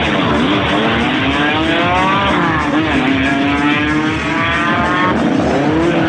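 Rally car accelerating hard, its engine revs climbing twice with a gear change about two seconds in, before easing off about five seconds in.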